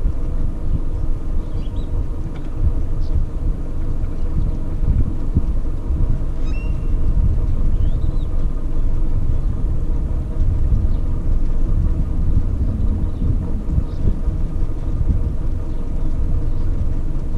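Bass boat's outboard motor running at low speed as the boat moves off, a steady low rumble.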